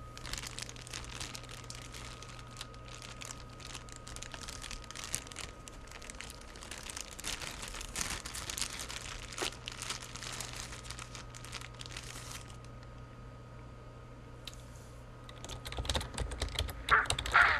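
Clear plastic bag crinkling as it is handled, in rapid crackles for about twelve seconds, then softer, and louder again near the end.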